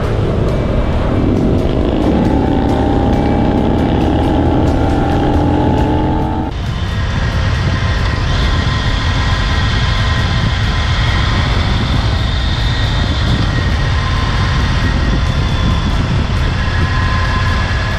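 Motorcycle engine pulling hard with the revs climbing steadily, with wind rushing past the camera. About six seconds in the sound changes abruptly to a steadier, higher-pitched running at speed.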